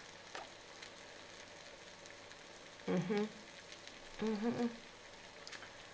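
Buttered cheese toastie sizzling in a closed electric contact grill, a faint steady hiss as melted cheese oozes out onto the hot plates. Two brief hums from a woman's voice about three and four seconds in.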